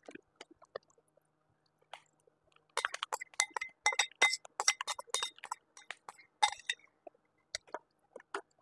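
A spoon clinking and scraping against a ceramic mixing bowl while scooping out the last of a corn fritter batter. A few scattered clinks at first, then a quick, dense run of clinks for about four seconds, and a few more near the end.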